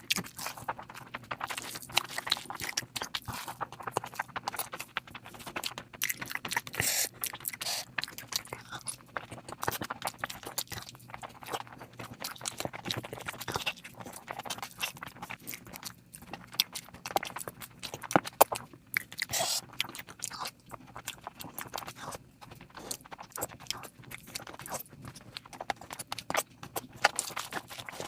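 Close-miked eating sounds of a person working through a meal of curry, rice and naan: irregular chewing, biting and mouth clicks throughout.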